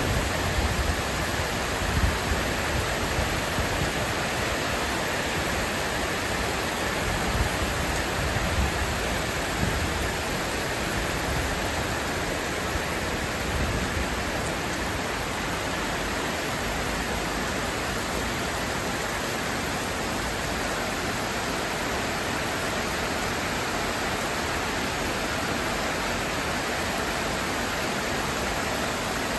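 Steady heavy rain falling: a dense, even hiss, with some irregular low rumbles in the first half.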